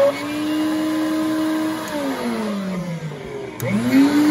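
Nilfisk Advance Carpetwin commercial upright vacuum's motor running at speed, then switched off and winding down with a falling whine. Near the end it is switched on again, rising quickly back up to speed before dropping off once more. This is a test start after the power cord was replaced, and the new cord is working.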